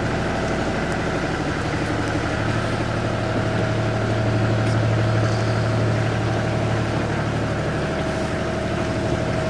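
Canal tour boat's engine running steadily, a low hum that grows a little louder for a few seconds in the middle.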